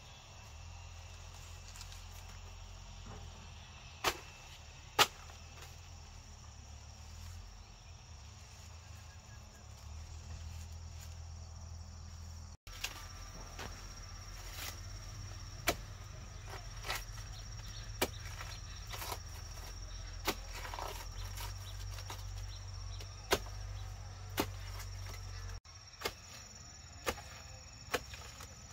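Scattered sharp knocks and taps, a couple of them much louder, over a steady high-pitched insect drone and a low hum.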